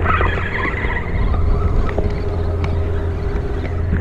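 Steady low engine drone, like a boat's motor running, with a few faint clicks.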